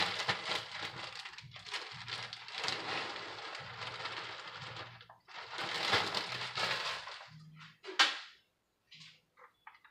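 Clear plastic bag of shredded cheese crinkling and rustling as it is shaken and squeezed out over a foil pan, in two long stretches. About eight seconds in comes one sharp knock, followed by a few faint taps.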